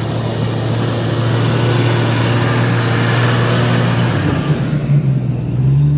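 Jeep Grand Cherokee's engine running steadily under light load as it crawls up a rocky dirt track and passes close by. The low engine drone breaks off about four seconds in, and the sound changes as the vehicle goes past.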